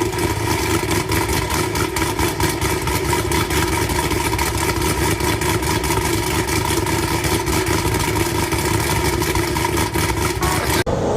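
Chevrolet SS's 6.2-litre LS3 V8, fitted with a BTR Stage III cam and Kooks catless headers, idling at a steady pitch with a rapid pulsing exhaust beat.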